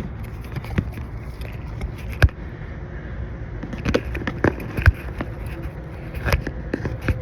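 Scattered sharp metallic clicks and knocks from handling a Schrader valve core removal tool on an air conditioner's service port, over a steady low background noise.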